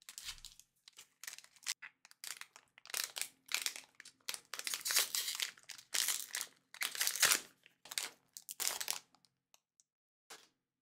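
Foil wrapper of a Pokémon trading-card booster pack crinkling and tearing as it is ripped open by hand, a run of crackly rustles that stops about a second and a half before the end, leaving a couple of faint clicks.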